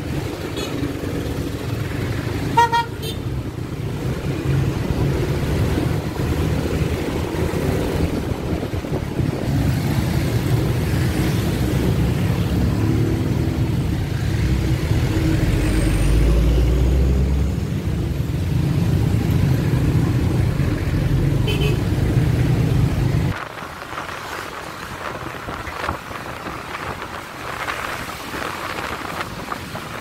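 Busy street traffic heard on the move: a steady low rumble of engines and wind, with a short vehicle horn beep about three seconds in. The rumble drops off abruptly about three-quarters of the way through.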